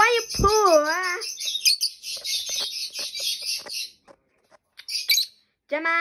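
Small pet parrots chirping in a fast, steady chatter for about four seconds, with another short burst of chirps about five seconds in. A wavering voice is heard briefly in the first second.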